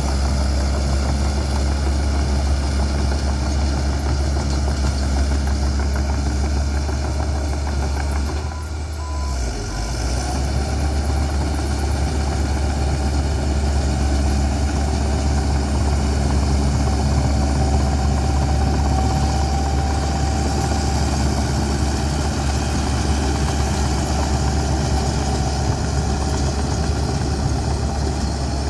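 Bulldozer's diesel engine running steadily with a deep drone, dipping briefly about nine seconds in before carrying on.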